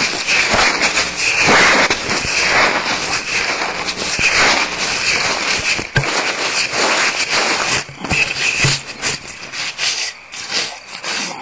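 Barn owl owlets hissing at close range: a string of loud raspy hisses, about one a second, the defensive hiss that nestlings give when disturbed at the nest. A couple of brief knocks come in partway through.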